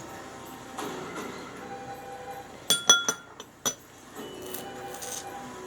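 Tableware clinking: a quick cluster of four or five sharp, ringing clinks about halfway through. Quiet background music plays behind them.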